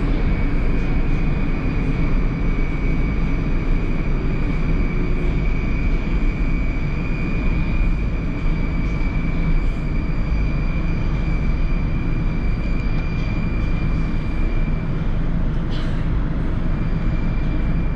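Interior running noise of an 81-760/761 Oka metro car moving slowly along a station platform: a steady low rumble with a constant high electrical whine. Near the end there is a short click and the whine drops out for a moment.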